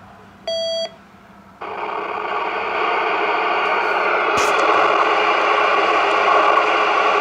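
AnyTone AT-6666 transceiver powering on with a short beep, then its speaker hissing with steady receiver static that swells up and holds. A single click sounds about four seconds in.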